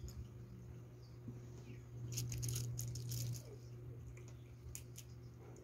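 Faint crackling and clicking of crab shell being broken apart by hand, in a cluster about two to three seconds in and twice more near the end, over a steady low hum.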